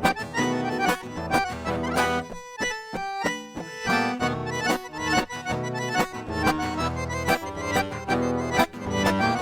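Accordion playing an instrumental sertanejo solo over a steady beat, thinning to a few held notes a little over two seconds in before the full playing returns.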